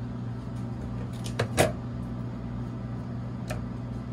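Two sharp knocks about a second and a half in, then a faint click, as things are set down on a stainless steel worktable and kitchen scale, over a steady low hum.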